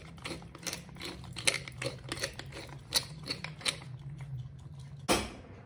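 Hand pepper mill grinding black pepper: a run of quick, irregular clicks and crunches as the mill is twisted, then one louder knock near the end.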